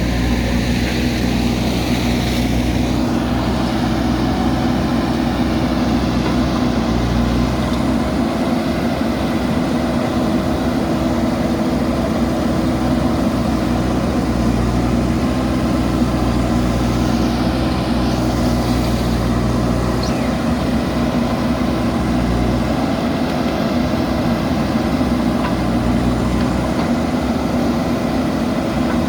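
JCB backhoe loader's diesel engine running steadily, with small shifts in the low engine note now and then.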